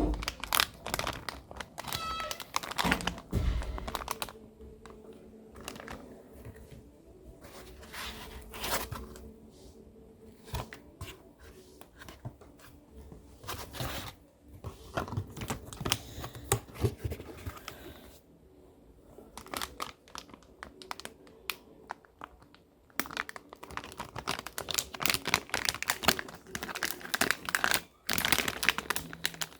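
Graphics-card packaging being handled and unwrapped: crinkling and rustling of plastic and paper with scattered taps and clicks. It thins out for a few seconds past the middle, then picks up again.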